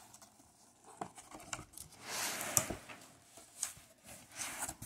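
Knife slitting the packing tape along the middle seam of a cardboard shipping box: small scratches and clicks of the blade, with a louder scraping tear of tape and cardboard about two seconds in.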